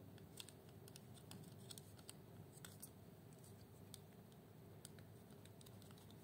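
Near silence with faint small clicks and scratches, scattered and irregular: wire ends being pushed into a plastic screw terminal block on a motor controller board while fingers handle its plastic box.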